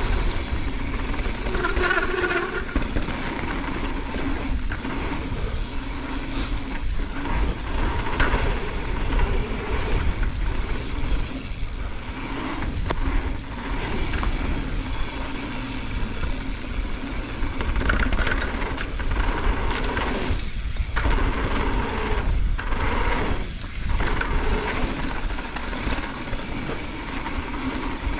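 Mountain bike rolling fast down a packed-dirt trail: tyres on dirt and the bike rattling over bumps, under a heavy low rumble of wind on the camera microphone.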